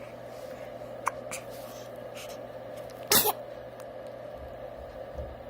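A single short sneeze about three seconds in.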